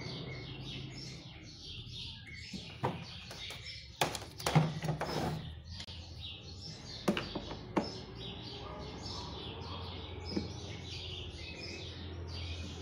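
Small birds chirping over and over, with a few sharp knocks and clatters, the loudest about four to five seconds in and two more near seven and eight seconds.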